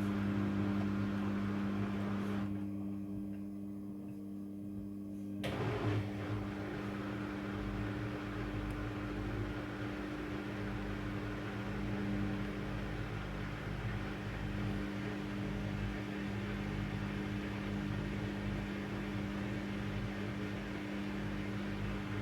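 Midea front-loading washing machine running in its prewash cycle with a steady motor hum. The rushing noise over the hum drops away for a few seconds and then comes back suddenly about five and a half seconds in.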